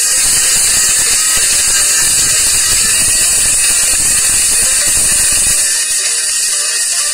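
A loud, steady high-pitched hiss, with a low rumble underneath that drops away about five and a half seconds in.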